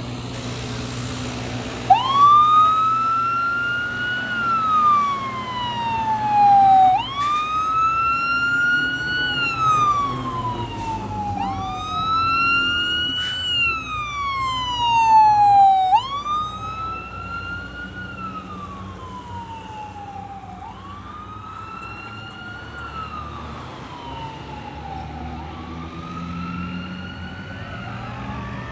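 Fire engine siren wailing, each cycle rising quickly and then sliding slowly back down, repeated about every five seconds and growing fainter after the first three cycles. A low, steady truck engine hum runs underneath.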